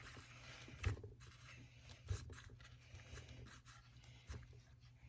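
Faint handling sounds: light rubbing with a few soft knocks as a work glove is pushed into an opening on the chainsaw.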